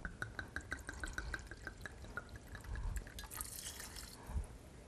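Port wine glugging out of a glass bottle into a measuring cup: a quick, even run of gurgles that fades out about two seconds in. Later comes faint pouring as the cup is emptied into a pot of melted chocolate.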